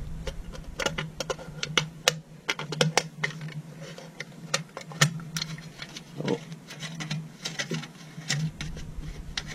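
Irregular small clicks and scrapes of a tool working a stuck nut on a guitar pedal's adapter jack, over a steady low hum.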